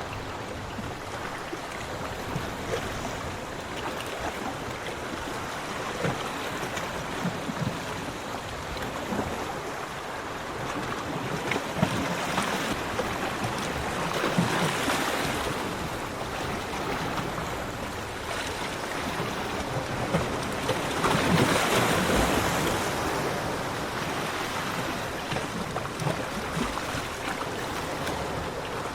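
Ocean waves breaking and washing on a beach: a continuous surf hiss that swells louder twice, about halfway through and again about three quarters of the way in.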